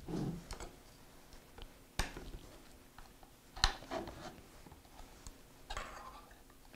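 Screwdriver blade scraping and prying along the seam of a Quantum Bigfoot 5.25-inch hard drive's metal lid, working it loose. Faint scraping with a few sharp clicks, one at about two seconds in and the loudest at about three and a half seconds, then a short rougher scrape near the end.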